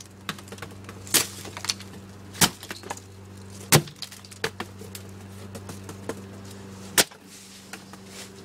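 A woven wicker lampshade being smashed against wooden boards: three sharp hits about a second and a quarter apart, smaller knocks after them, and a fourth hard hit about seven seconds in. A steady low hum runs underneath and cuts off at that last hit.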